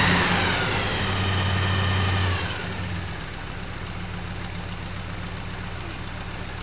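1984 GMC pickup's engine revved, its pitch falling as the revs drop, then settling about two and a half seconds in to a quieter, steady idle. It is running on a dead cylinder, with the spark plug wires put on in the wrong firing order during a tune-up.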